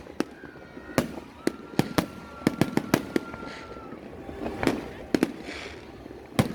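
Fireworks display: a dozen or so sharp bangs at irregular intervals, some in quick pairs, with a faint thin steady tone for a few seconds early on and a brief hiss in the middle.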